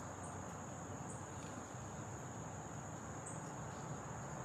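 Faint, steady high-pitched chirring of an insect chorus, unbroken, over a low background hum.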